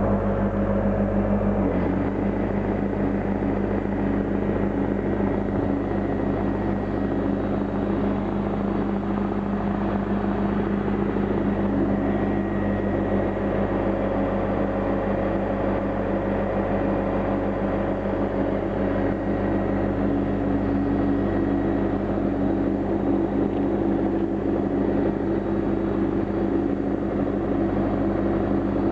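Air compressor running steadily, a continuous mechanical drone that shifts slightly about two seconds in.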